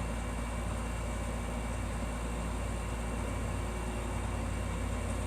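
Steady low rumble with a faint hiss over it and no distinct events: constant background noise.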